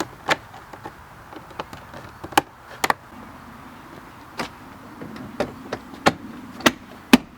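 Plastic door-trim pieces on a pickup's rear door panel clicking and tapping as they are handled and pressed into place, about a dozen sharp clicks scattered through, the loudest near the end.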